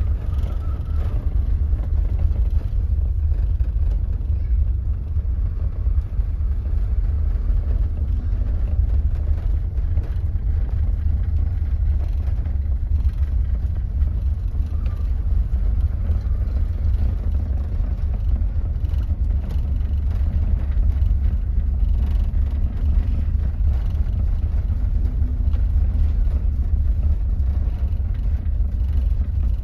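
Gale-force wind buffeting the microphone without a break, a deep flickering rush, over the hiss of rough sea and the ship's churning wake.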